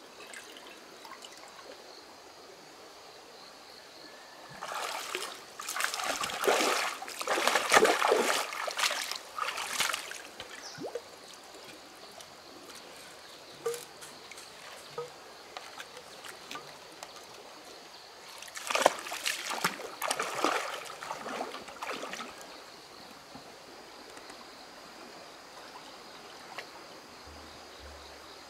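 Stream water splashing and sloshing in two spells of several seconds each, as a pump's suction hose is handled in the shallow water.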